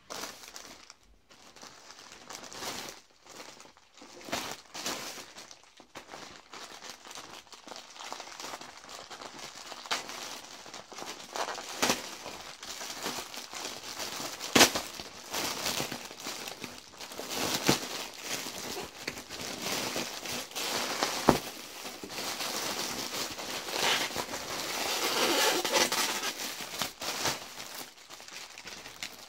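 Black plastic poly mailer crinkled and torn open by hand, a continuous rustle broken by sharp snaps and crackles. Near the end, a longer, louder stretch of crinkling as the clear plastic bag inside is handled.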